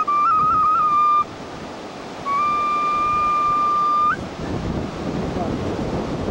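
A flute plays quick trilled, ornamented notes, then one long held note that bends up in pitch at its end. After that comes a steady rushing noise with a low rumble.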